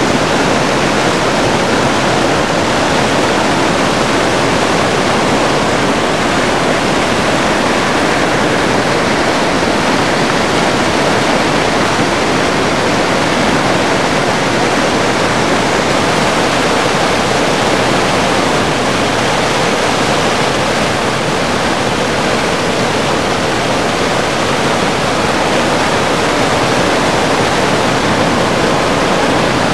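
Rushing, falling water: a loud, unbroken rush with no distinct splashes or changes.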